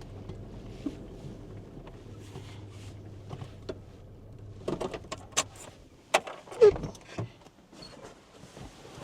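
A vehicle engine idling steadily, then shut off about four and a half seconds in, followed by a run of sharp clicks, knocks and clunks.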